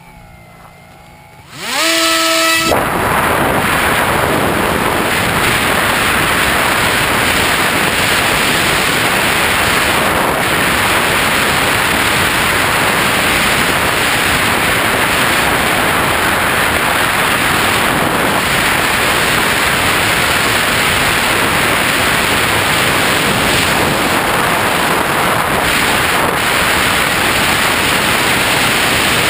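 Bixler RC plane's electric motor spinning up with a rising whine about two seconds in, then a loud steady rush of wind and propeller noise picked up by the camera mounted on the plane while it flies.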